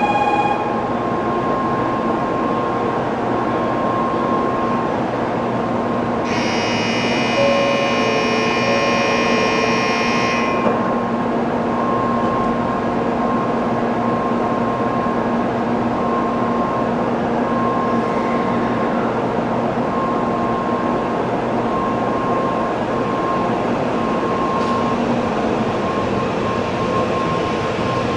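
Steady noise of a Shinkansen train at the station, even in level throughout, with a faint steady whine. A brief cluster of high tones sounds about six seconds in and stops about four seconds later.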